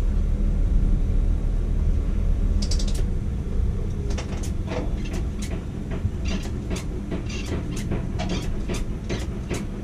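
Steady low machinery rumble from a working tower crane. From about two and a half seconds in come many short, sharp clicks and ticks, irregular, two or three a second.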